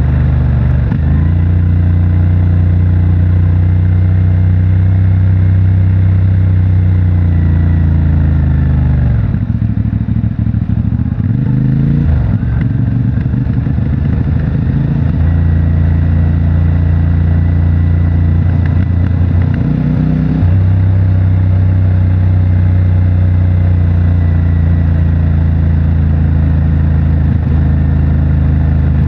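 CFMOTO 450MT's parallel-twin engine running through its stock exhaust at steady throttle. About nine seconds in the note falls and turns uneven for a few seconds as the throttle is eased, then it steadies, with another short dip about twenty seconds in.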